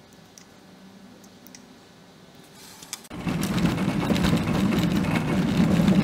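Faint handling clicks, then about three seconds in an impact wrench starts suddenly, running the wheel bolts in with a loud, steady rattle.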